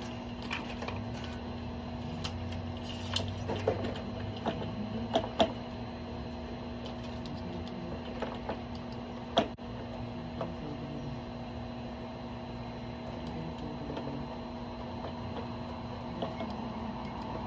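Scattered clicks and knocks of hand work on a gate latch and its fittings, busiest in the first few seconds with one sharp click about nine seconds in, over a steady hum.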